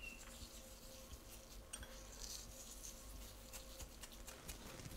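Salt being sprinkled over sliced vegetables layered in a pan: faint scattered ticks and brief soft hiss over quiet room tone, with a faint steady hum underneath.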